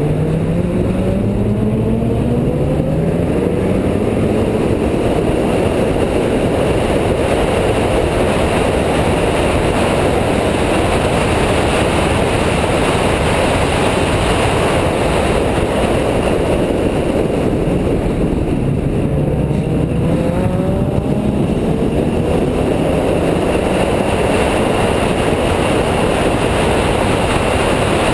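Onboard sound of a car at speed on a race track: the engine note climbs as it accelerates out of a corner at the start and again about two-thirds of the way through, over constant wind and tyre noise.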